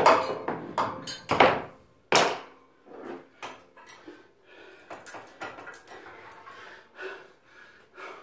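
Knocks and clattering from a cable machine's metal hardware being handled, as the weight is changed between drops of a drop set: a few loud knocks in the first two seconds, then softer rattling and rustling.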